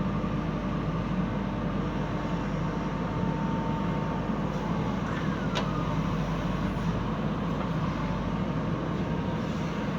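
Diesel engine of a JCB 3DX backhoe loader running steadily while working, with a single sharp click about five and a half seconds in.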